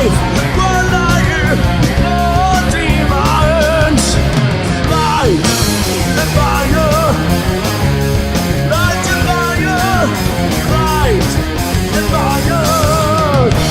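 Rock band playing live: drums, bass and distorted guitars, with a lead line of bent, wavering notes over them.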